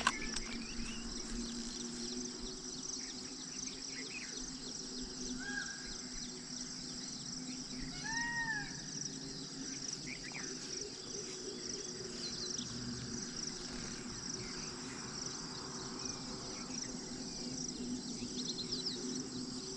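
Steady high-pitched insect chorus shrilling without pause over a low steady hum, with two short rising-then-falling calls about five and eight seconds in.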